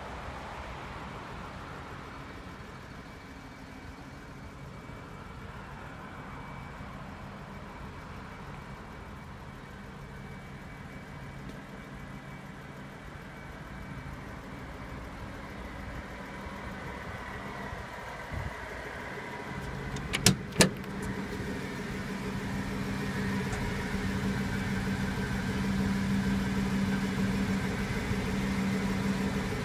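Trippel Schwimmwagen amphibious vehicle's engine idling steadily, growing louder over the second half. Two sharp clicks come about two-thirds of the way through.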